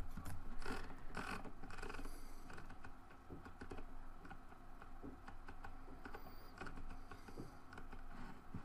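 Computer keyboard and mouse clicks, a few sharper taps in the first two seconds, then fainter scattered clicking over a faint steady hum.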